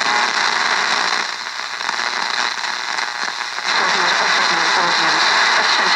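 National Panasonic R-314 vintage radio's speaker hissing and crackling with static between stations. The hiss thins for a couple of seconds, and from about two-thirds in a faint broadcast voice comes through the noise.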